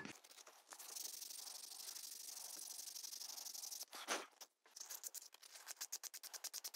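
Fine sandpaper rubbed by hand over the wooden handle of a Stanley No. 1 plane: a faint steady hiss, then from about five seconds in quick short scratchy strokes, several a second.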